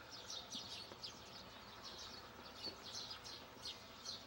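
Small birds chirping, a faint steady run of short high chirps, about three a second.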